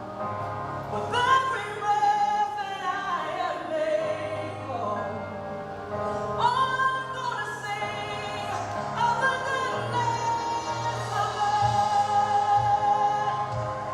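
Congregational worship music: a choir and singers held on long sung notes over a band accompaniment, in the gospel worship-song style.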